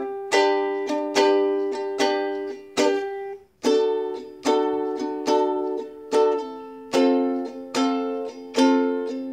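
Solo ukulele strumming chords as background music, each strum ringing out and fading, about one and a half strums a second, with a short break about three and a half seconds in.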